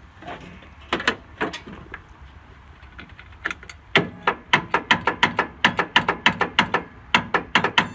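A ratchet wrench clicking: a few sharp clicks about a second in, then a quick, even run of clicks, about four or five a second, from about four seconds in.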